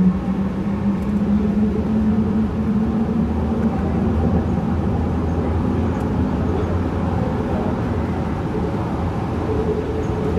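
Yongin EverLine light-rail train (Bombardier ART 200, driven by linear induction motors) running between stations, heard from inside the car: a steady rumble of wheels and running gear. A low motor hum rises slightly in pitch over the first couple of seconds and then fades into the rumble.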